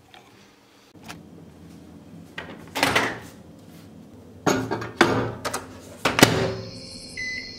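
A Bosch built-in microwave oven's door being opened and shut, with several knocks and rattles as things are handled at it. A short electronic beep from its control panel follows near the end.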